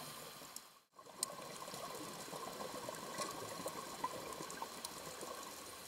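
Faint underwater ambience recorded through a camera housing: a steady hiss with scattered small clicks and crackles, dropping out briefly about a second in.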